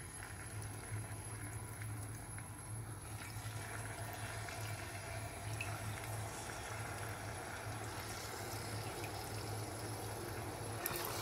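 Raw chicken pieces sizzling gently in oil that is only just starting to heat, the sizzle growing as more pieces go in from a few seconds on. A steady low hum sits underneath.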